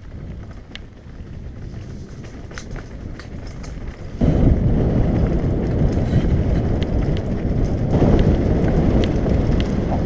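Mountain bike rolling fast down a rough gravel track: wind rumbling on the camera's microphone and tyres crunching over stones, with scattered clicks and rattles from the bike. It grows suddenly louder about four seconds in.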